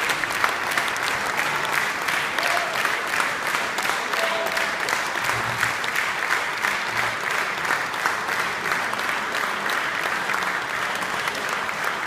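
Concert-hall audience applauding steadily and densely, many hands clapping together.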